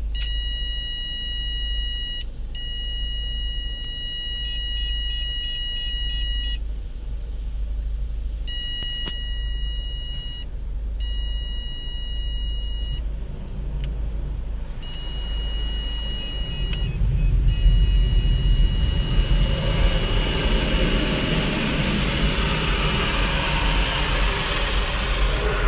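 Automatic car wash heard from inside the car: a steady low rumble, with water spray hissing onto the windscreen and body that grows loud from about two-thirds of the way in. A high, steady tone switches on and off in stretches of a few seconds through most of it.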